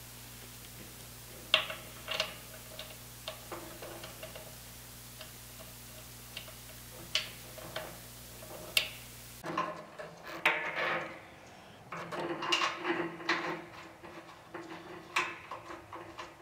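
Sharp, scattered metallic clicks and clinks of a wrench, brass fittings and a braided hose being handled while a compressor's discharge line is fitted, over a steady low hum. About nine and a half seconds in, the hum drops away and the clinking and rustling come thicker.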